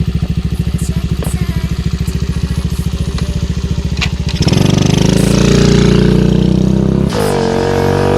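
Kawasaki KX80's single-cylinder two-stroke engine idling with an even putter. About four and a half seconds in it is revved up and held at a higher, louder pitch.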